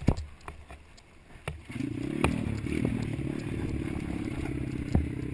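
Dirt bike engine on a trail ride. The engine goes quiet about half a second in, as if the throttle is chopped, then picks back up about two seconds in and runs steady. Sharp knocks and clatter come from the bike over the rough ground.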